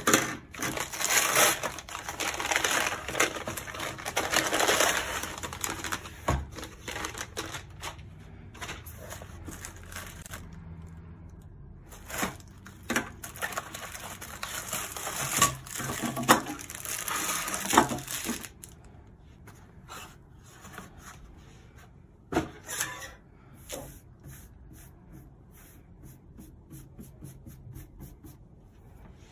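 A paper padded mailer being torn open and handled, with dense crinkling and rustling at first. Then intermittent rustles as a cardboard box is pulled out and plastic-bagged parts are handled. In the second half this thins to scattered light knocks and clicks of things being set down on a table.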